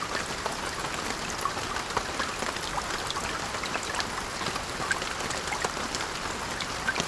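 Steady rain: an even wash of rainfall with many small, sharp drop ticks scattered through it.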